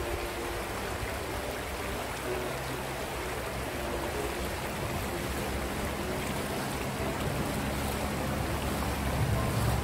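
Shallow river riffle: water rushing steadily over stones. Near the end, splashing of someone wading through the water.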